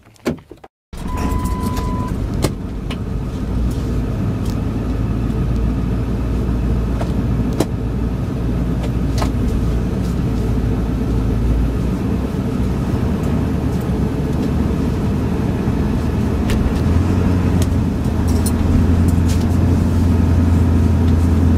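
Diesel four-wheel-drive pickup truck running and driving off, heard from inside the cab, with a short steady beep about a second in. The low engine drone grows stronger over the last few seconds.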